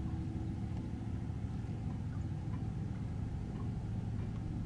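An engine idling: a steady low rumble and hum.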